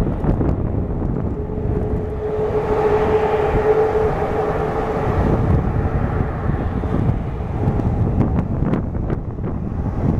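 Boeing 757-200 jet engines passing on a landing approach: the engine noise swells to a peak a few seconds in, with a steady whine, then eases off. Wind rumbles on the microphone throughout.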